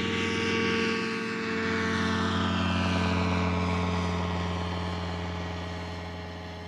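Weight-shift trike microlight's engine and propeller running at full takeoff power, a steady drone whose pitch falls gradually as the machine lifts off and climbs away, fading in the last seconds.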